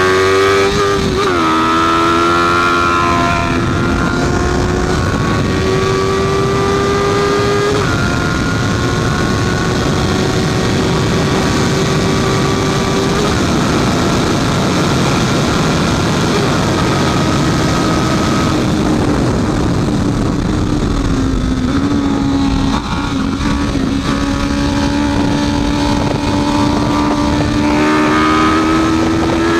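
Honda CB650F's inline-four engine running hard, its pitch climbing and dropping at gear changes about a second and about eight seconds in. Through the middle the pitch holds and then sags as it eases off, and it climbs again over the last few seconds.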